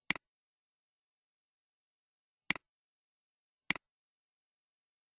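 Three computer mouse clicks, each a quick double click of button press and release: one right at the start, then two more about a second apart near the middle, with dead silence between them.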